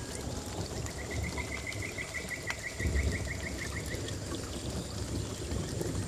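Paludarium waterfall running: water trickling and splashing steadily. Over it, a high rapid trill of about five notes a second starts about a second in and stops about four seconds in.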